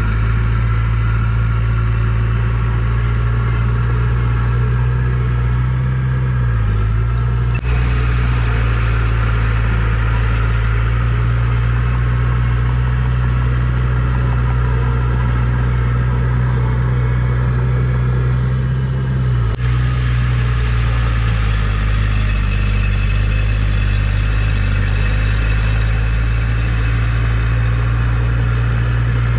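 Heavy diesel engine of earthmoving equipment running steadily under load, with two momentary dips.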